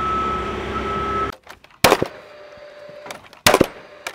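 Scissor lift motor running with its motion alarm beeping steadily, stopping abruptly about a third of the way in. Then two sharp double shots from a cordless framing nailer, about a second and a half apart, each followed by a brief fan whir.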